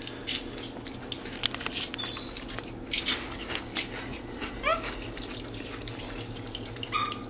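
Capuchin monkey eating crunchy corn-puff snacks: scattered crisp crunching clicks as it bites and picks pieces from the tub, with a short rising squeaky call about four and a half seconds in.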